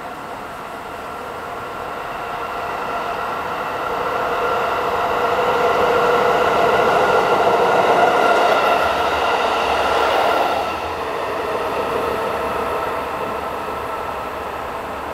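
KiYa E195 diesel rail-transport train passing close by, its engine and wheels rising steadily as it approaches, loudest about eight seconds in. The sound drops suddenly just before eleven seconds, then fades as the train moves away.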